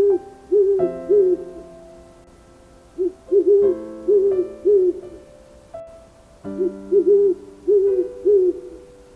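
Owl hooting in three phrases of about five short, arched hoots each, over soft piano music.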